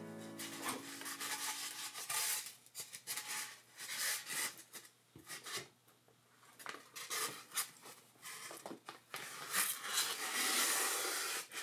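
Block of styrofoam rubbing and scraping against a turntable's plastic plinth as it is pressed on and handled, with scattered light knocks. A longer, louder scrape near the end as the turntable is turned over onto the foam.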